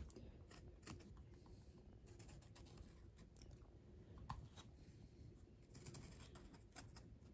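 Near silence: room tone with a few faint, scattered light clicks.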